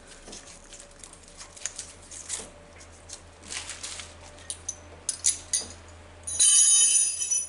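Light metal clicks and scrapes from the solenoid coil on a Meyer E47 snowplow pump valve being fitted and handled. Near the end comes about a second of a loud, shrill sound with several high tones, which stops suddenly.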